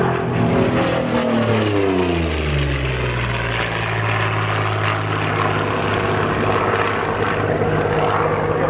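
Propeller-driven aerobatic plane's engine at full power on a fast pass, its pitch dropping steeply about two seconds in as it goes by, then running steadily at the lower pitch as it pulls away.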